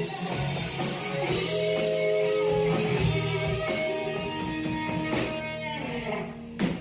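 Live hard rock band playing: electric guitars hold sustained notes over bass guitar and drum kit, with a sharp hit near the end.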